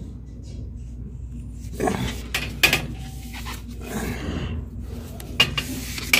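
Scattered knocks, scrapes and rustles of hands working with cables and pipe insulation, in clusters about two, four and five and a half seconds in, over a steady low hum.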